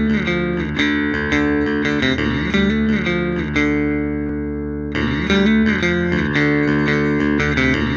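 Background instrumental music: a melody of plucked notes over a bass line, the phrase starting over about five seconds in.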